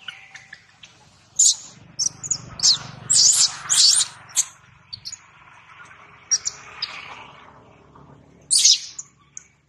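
Baby macaque screaming in a string of short, high-pitched squeals and shrieks, loudest about one and a half seconds in, around three to four seconds in and near the end, in distress as it struggles with its mother over nursing.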